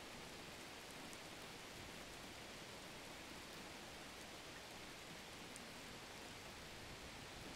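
Faint steady hiss of background noise, with no distinct sound standing out.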